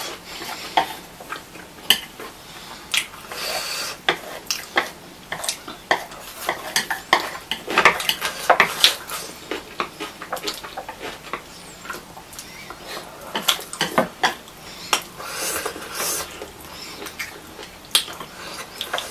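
Chopsticks clicking and scraping against ceramic plates as two people pick up stir-fried noodles, in many short, irregular taps.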